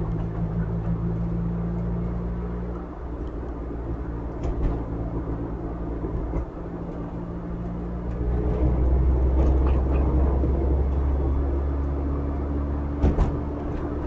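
Car driving, a steady low drone of engine and road noise as picked up by a dashcam. The drone swells louder about eight seconds in, and two sharp clicks come near the end.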